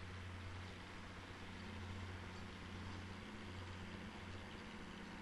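County 754 Super Four tractor's diesel engine running steadily, a faint low hum under film hiss.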